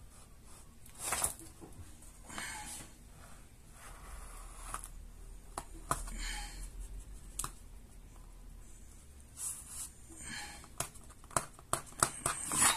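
Handling noises from working a laptop LCD panel apart by hand: scattered scrapes and rustles with small plastic clicks, the clicks clustering near the end.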